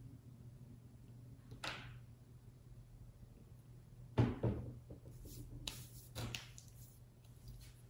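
A faint steady low hum, broken by a few short knocks and rustles; the loudest is a dull thunk about four seconds in.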